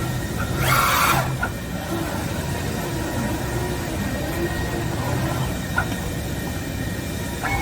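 Elitron Kombo+ CNC cutting table running with a steady machine hum and drone, a short burst of hiss about a second in, and a few light clicks.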